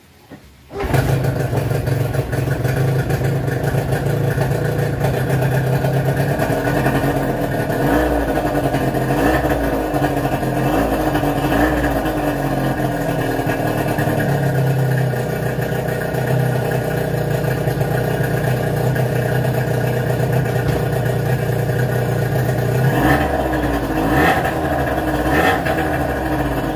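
Hangkai 18 HP two-stroke, two-cylinder outboard motor catching on its first start, just under a second in, then running steadily at a loud, even speed.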